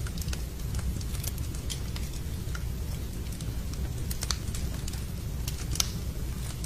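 Wood fire in a fireplace crackling, with irregular sharp pops, two of them louder about four seconds and six seconds in, over a steady low rumble mixed with rain.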